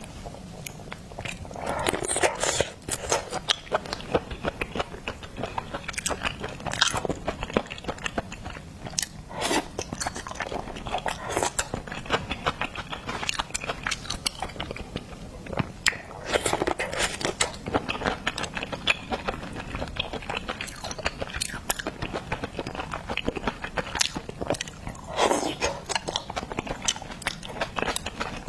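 Close-miked eating of seafood: biting and chewing with crunching, a dense run of wet mouth clicks and crackles, and louder bites now and then.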